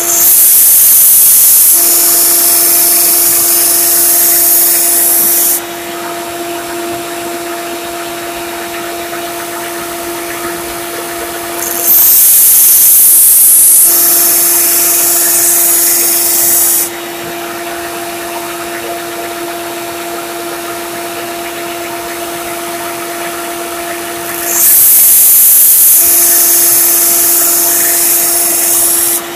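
Grizzly 1x30 belt sander running with a steady hum. A machete's edge is ground on its 120-grit belt in three passes of about four to five seconds each, a loud high grinding hiss each time the blade meets the belt.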